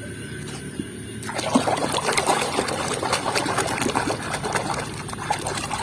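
Water splashing and trickling as a muddy plastic toy animal is washed, starting about a second in and going on as a dense patter of small splashes.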